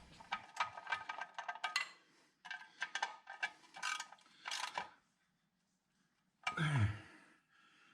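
Light metallic clinks and rattles of hand tools and metal parts being handled: a run of quick clicks with a faint ringing tone, a second cluster, then a pause. A short voice sound comes near the end.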